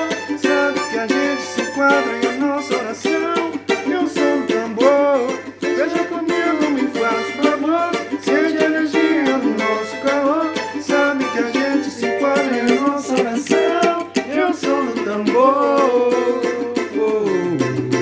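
Music: a small plucked string instrument strumming and picking, with a melody that slides in pitch like a singing voice and a steady low hum underneath.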